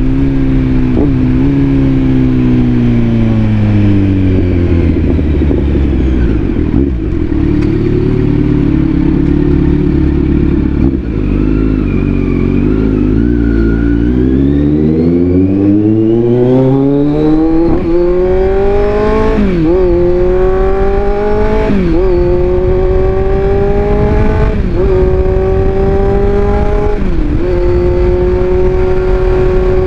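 Kawasaki Z900 inline-four with the airbox removed, running under way. Its revs fall steadily for about ten seconds, stay low, then climb hard, dropping sharply at each of about five upshifts two to three seconds apart before settling to a steady pitch near the end.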